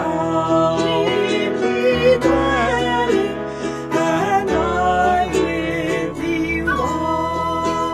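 A man singing a slow hymn verse with electronic keyboard accompaniment, the voice over held chords and a steady bass line.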